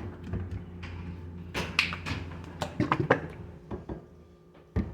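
Kitchen handling sounds while sauce is being mixed: scattered clicks, knocks and short scrapes of containers and utensils, with a sharper knock near the end, over a steady low appliance hum.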